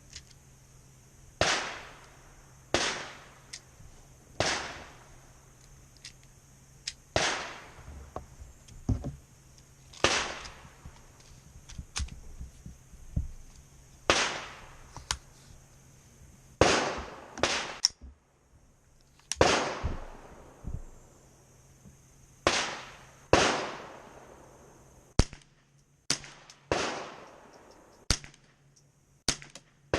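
Winchester Wildcat .22 LR semi-automatic rifle firing single shots at a steady pace, one every one to three seconds, each crack trailed by a short echo.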